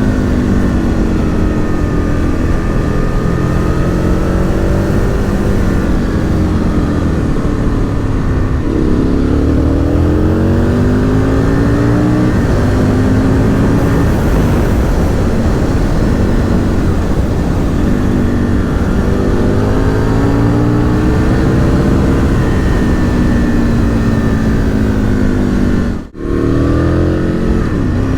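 Aprilia RSV Mille R's 60° V-twin running through an aftermarket Akrapovic exhaust while the bike is ridden. The engine note repeatedly rises and falls as the bike accelerates and shifts, and it cuts out for a moment near the end.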